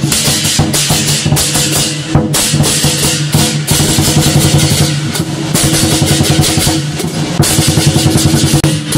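Lion dance percussion: a large drum beating fast with clashing cymbals, with stretches of rapid rolls.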